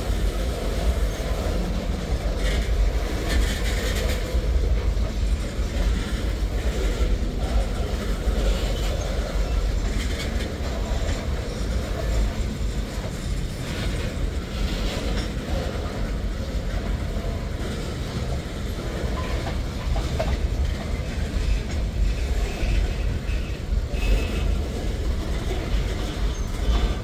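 Norfolk Southern manifest freight train's tank cars and a boxcar rolling past: a steady low rumble of steel wheels on rail, with scattered clicks as the wheels cross rail joints.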